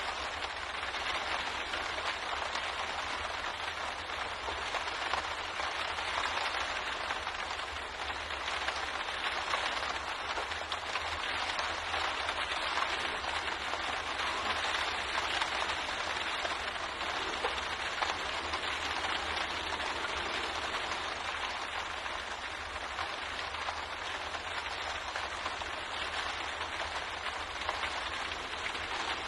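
Steady rain pattering on a window pane, a dense even hiss of many small drop ticks, with a low rumble underneath.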